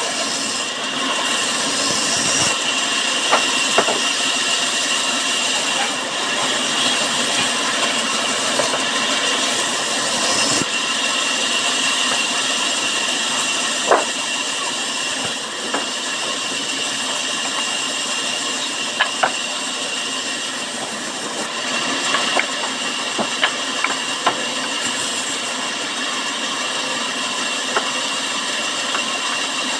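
Sawmill saw running steadily and cutting wood, a constant high whine over a continuous machine noise, with scattered sharp knocks from the timber being handled.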